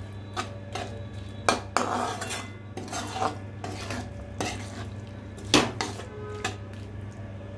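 A spatula stirring onions, tomatoes and spices in a nonstick pan: irregular scrapes and knocks against the pan, the sharpest about five and a half seconds in, over a steady low hum.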